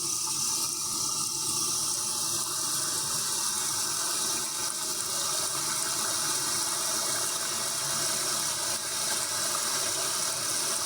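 Steady outdoor night ambience: a constant rush of flowing river water with a continuous high insect drone over it.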